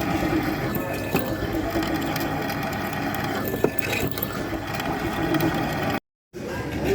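Milling machine spindle running with a drill bit boring into a mild steel block, a steady mechanical whirr; the sound cuts out abruptly for a moment near the end.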